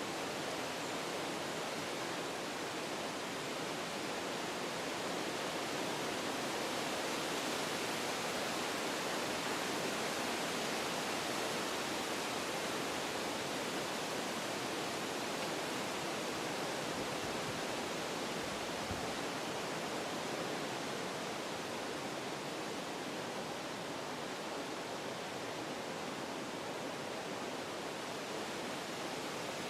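Wind blowing through forest trees: a steady rushing that swells a little partway through and then eases off.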